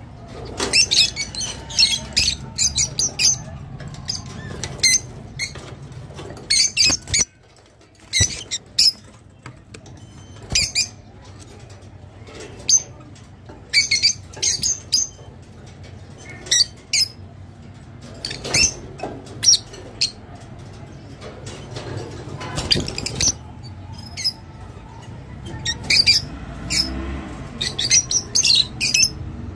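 Caged lovebirds, rosy-faced lovebirds among them, chirping: shrill, high-pitched calls in quick clusters, with a short lull about a quarter of the way through.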